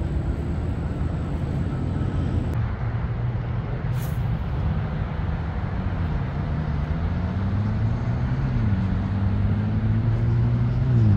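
Road traffic: a steady engine rumble, with one vehicle's engine note climbing and dropping back twice as it shifts up through the gears while accelerating.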